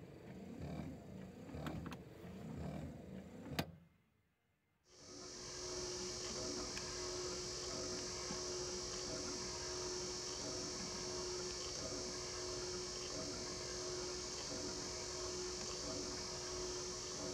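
Citroën 2CV windscreen wiper motor, repaired and running normally: first the wipers sweeping in a steady rhythm of about one stroke a second, then a click and a second of quiet, then the opened motor spinning with a steady high whine and hum.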